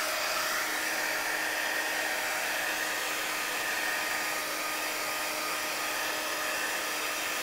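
Marvy embossing heat gun blowing steadily, its small fan motor running with an even whir, as it is passed over plastic wrap to shrink and seal it onto a box.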